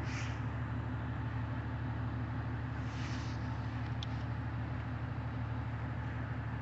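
Diesel engines of parked fire trucks idling, a steady low hum.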